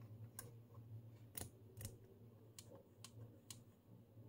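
Faint, scattered clicks of the front-panel knobs of a Hameg HM207 transistor oscilloscope being turned, about six over a few seconds, over a low steady hum.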